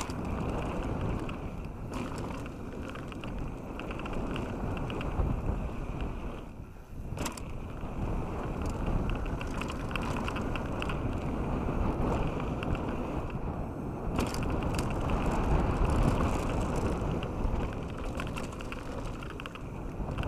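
Canyon Strive 8.0 enduro mountain bike on Onza tyres descending a loose gravel trail: tyres crunching over the gravel with constant rattling and clicking of the bike over bumps, and wind rushing over the camera microphone. A brief lull comes about seven seconds in.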